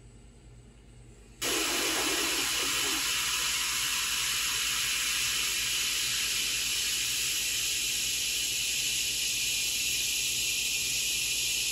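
Hot air rework station blowing a steady hiss of air over a newly placed Tristar IC to reflow its solder. It starts suddenly about a second and a half in.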